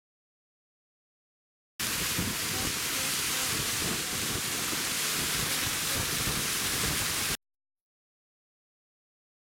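Dead silence, then a loud, steady rush of wind and water from a fast motorboat that starts abruptly just under two seconds in and cuts off just as abruptly about two seconds before the end, followed by dead silence again.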